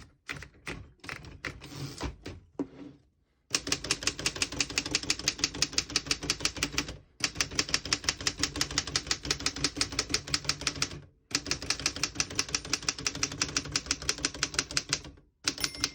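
1915 Royal 10 manual desktop typewriter being typed on: a few scattered clicks at first, then rapid, evenly paced keystrokes in three runs with brief pauses. Near the end the margin bell dings once, signalling the end of the line.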